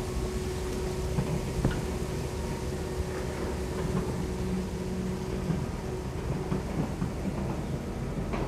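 Kobelco SK200 long-reach excavator's diesel engine running steadily under hydraulic load as the boom lifts and the long arm reaches out, with a steady tone over the rumble and a few light knocks.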